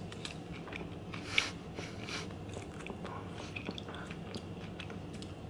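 A person chewing a mouthful of pumpkin cake donut close to the microphone: soft, moist chewing with scattered small mouth clicks. A short, sharp bite or smack about one and a half seconds in is the loudest sound.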